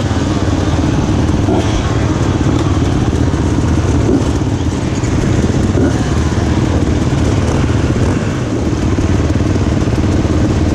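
Many enduro dirt-bike engines running together on a crowded start grid: a loud, dense, steady mix of idling motors with the odd faint rev rising and falling over it.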